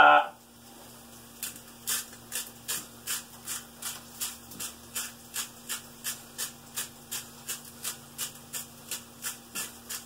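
A hand-turned grinder being twisted over a bowl of fries, giving a regular ratcheting click about two and a half times a second. It starts about a second and a half in, over a faint steady hum.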